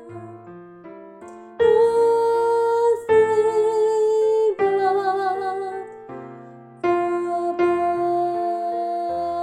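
Piano accompaniment with a soprano voice singing long held notes with vibrato; the piano plays alone for the first second and a half, and the voice drops out briefly past the middle before a final held note.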